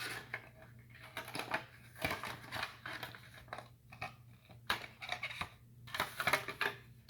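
Packaging being handled: irregular rustling and light clicks as the smart lock's parts and packing are taken out of the box, over a faint steady low hum.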